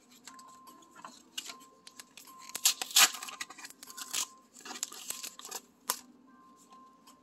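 Pokémon trading-card packaging, cardboard and plastic wrap, being torn and pulled open by hand. It comes as a run of short rips and crinkles, loudest about three seconds in, with a sharp crack near the end.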